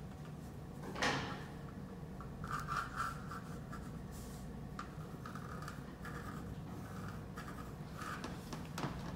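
Pencil scratching and rubbing across drawing paper in short, irregular strokes, with a sharp tap about a second in.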